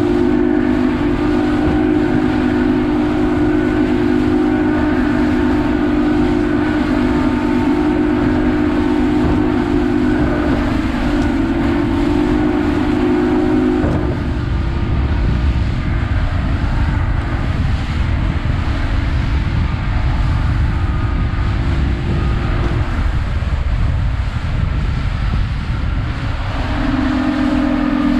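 Boat engine running hard at speed, a steady droning note over wind buffeting and water rushing past as the hull runs through rough chop. About halfway the engine note drops and the low wind rush grows, the note fades out for a few seconds and comes back strongly near the end.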